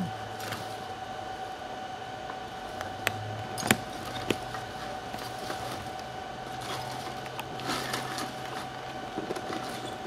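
Hands handling the metal hard drive caddy from a Panasonic Toughbook CF-51 laptop: three sharp clicks a little over three seconds in, the middle one loudest, then light scraping and rustling. A steady background hum runs underneath.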